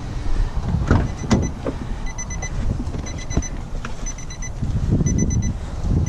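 Vehicle door-open warning chime: a short run of quick high beeps repeating about once a second, starting about a second in as the van's driver door is opened. Underneath are a low wind rumble on the microphone and a few knocks from the door and handling.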